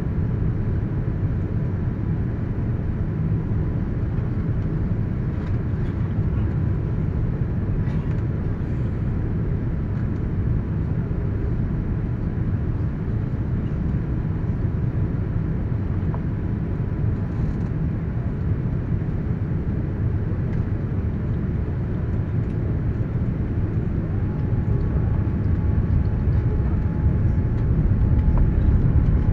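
Cabin noise inside a Boeing 787-9 airliner on descent: a steady low rumble of engines and airflow, with a faint steady whine, that grows a little louder near the end.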